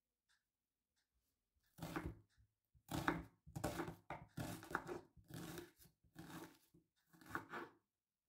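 Kitchen knife slicing a red onion into large half-rings on a wooden cutting board: about six crunching cuts, roughly one a second, starting about two seconds in.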